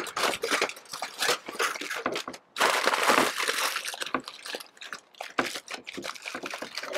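Aluminium foil crinkling and crackling as hands crumple and press it tight into a wrapped packet, in an irregular run of crackles, loudest a little after two and a half seconds in.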